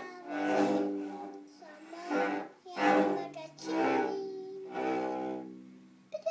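A beginner child bowing a cello: about five slow bowed notes, each swelling and fading, with the child singing along.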